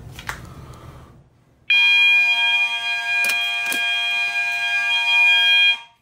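Fire alarm horns set off by a pull station in audible walk test: a loud, steady, buzzy tone starts abruptly about two seconds in. It holds for about four seconds and then cuts off, the panel's brief sounding that confirms the device has tripped.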